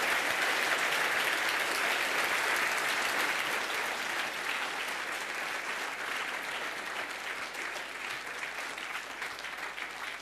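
Audience applauding, loudest at the start and slowly dying down.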